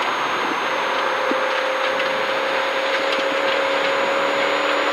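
Inside the cabin of a Mazda Miata rally car at speed on a wet road: a steady hiss of tyres and water spray, with the engine held at a steady pitch from about a second in.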